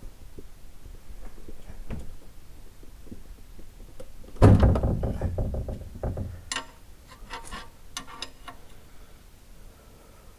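A wrench with a 19 mm socket working a car's oil-pan drain plug: a loud clunk about four and a half seconds in as the plug breaks loose, then a run of sharp clicks.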